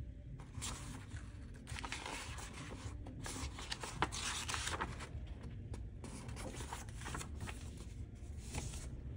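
Paper pages of a model kit's instruction booklet being leafed through and handled, rustling and flicking in several bursts.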